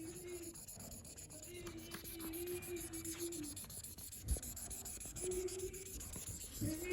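Faint scratching of a marker tip rubbing back and forth on a colouring-book page, with a faint steady hum that comes and goes and a single knock about four seconds in.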